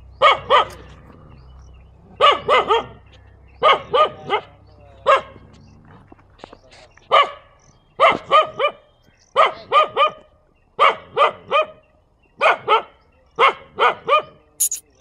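A tan dog barking over and over, in quick clusters of two to four barks about every second or two. Near the end there is a brief high squeal.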